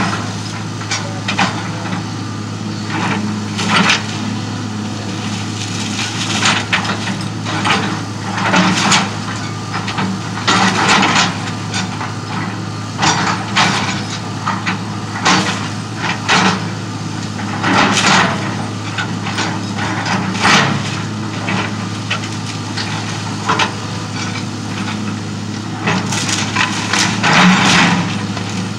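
Hitachi EX200 excavator's diesel engine running steadily as its bucket tears into a wood-frame house, with repeated cracking and crashing of splintering boards and siding every second or two. The loudest crashes come near the end.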